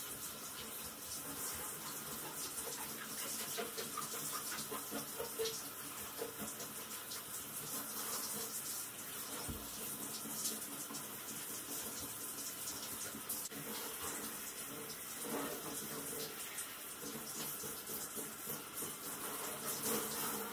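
Handheld shower head spraying water steadily onto a dog's wet coat, the spray hissing and splashing without a break.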